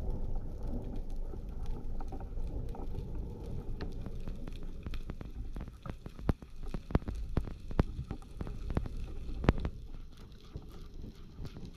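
Underwater sound picked up through a diving camera's housing: a low rush of water moving past as the freediver swims down, with scattered sharp clicks and ticks that come thickest in the second half. The rush eases off near the end.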